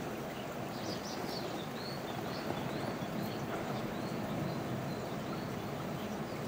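A bird singing a quick run of short, high, arched chirps, about three a second, from about a second in until about four seconds in, over a steady rushing background noise.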